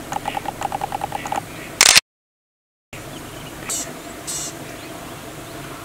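An animal's rapid chattering call, about a dozen quick pulsed notes at roughly ten a second. It is followed by a loud burst of noise, and the sound then cuts out completely for about a second. After that comes a faint steady outdoor background with two short rustles.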